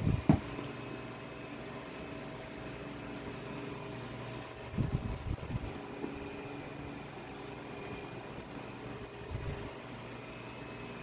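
A plastic cup of iced juice set down on a table with a sharp knock at the start, over a steady humming background with faint steady tones. A few soft low thumps come about halfway through and again near the end.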